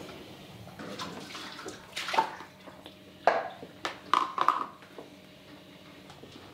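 Small plastic tableware clattering on a child's high-chair tray: a plastic spoon knocking and scraping in a plastic bowl. There are a handful of sharp clacks, one about two seconds in and a cluster a second later.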